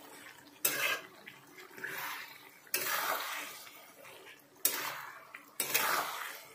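Flat metal spatula scraping and turning chopped tomatoes in a kadhai over medium-high heat, in about four sharp strokes. Each stroke fades as the mixture sizzles.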